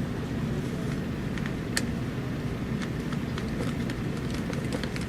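Screwdriver backing a small screw out of a netbook's plastic bottom case, giving light scattered clicks and ticks over a steady low hum.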